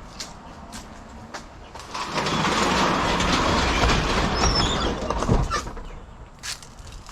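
A passing vehicle: a wide rushing noise that swells for about two seconds and then fades away. A few sharp clicks or steps come before and after it.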